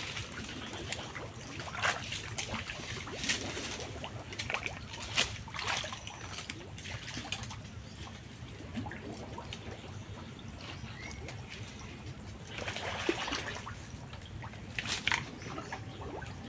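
Water sloshing and splashing as a person wades through muddy swamp water, going from knee-deep to waist-deep, in irregular separate splashes. There is a longer stretch of sloshing about three-quarters of the way in.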